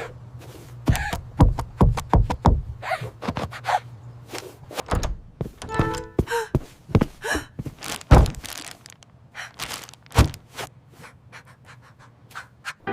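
A rapid, irregular string of thuds and knocks, cartoon-style impact sound effects, with a few short pitched sounds around the middle, over a low steady hum.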